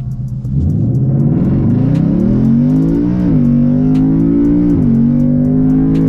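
Ford Mustang GT's stock 5.0 Coyote V8 idling, then launching hard from a standstill about half a second in for a 0–60 run. The revs climb, drop at an upshift of the 10-speed automatic about three seconds in, climb again, and drop at a second upshift near five seconds.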